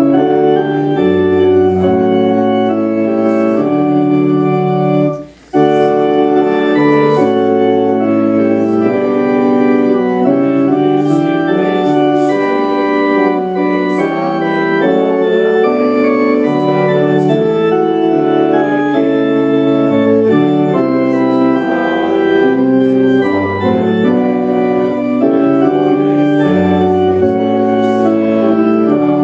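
Church organ playing slow, sustained chords in a hymn-like progression, with a brief break between phrases about five seconds in.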